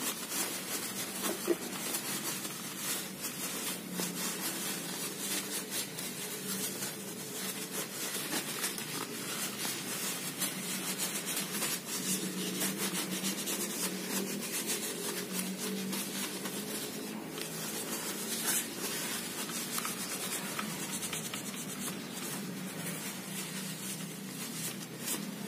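Cloth wiping over a fishing reel: steady, scratchy rubbing made of many small strokes.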